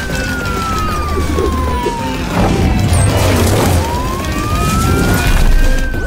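Cartoon police car's wailing siren, one slow tone falling over about three seconds and then rising again, over music and a low rumble.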